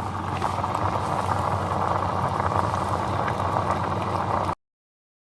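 Coffee machine running with a steady hum and a boiling hiss, cutting off suddenly about four and a half seconds in.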